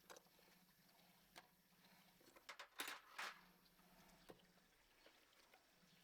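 Near silence: faint room tone with a few small ticks and two brief rustling bursts about three seconds in.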